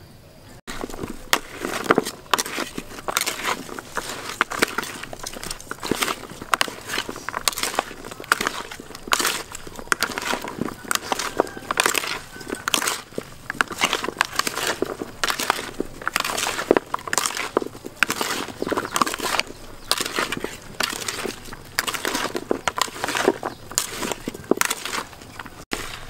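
A bare hand mixing raw pork leg chunks with sliced carrots, shallots, garlic and seasonings in a plastic bowl: a dense, irregular stream of wet squishing and crunching as the pieces are turned over and knock against the bowl. It starts abruptly just under a second in and stops just before the end.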